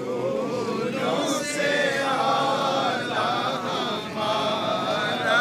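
A group of men's voices chanting a religious recitation together, in long, wavering held notes without a break.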